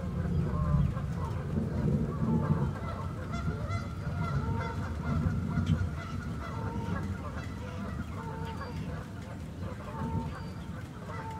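Waterfowl calling over and over in short honks, over steady rain falling on a lake and a low rumble.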